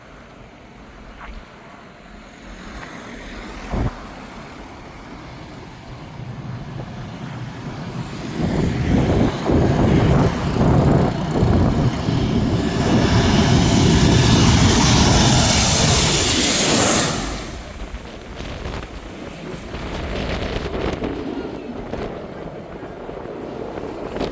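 Jet airliner engines at close range, building over several seconds into a loud rushing roar with a rising high hiss, then dropping off abruptly a few seconds before the end.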